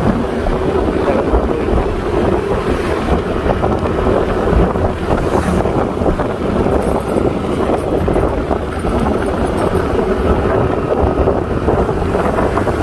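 Wind rushing over the microphone of a hand-held phone on a moving scooter, with a steady engine hum underneath.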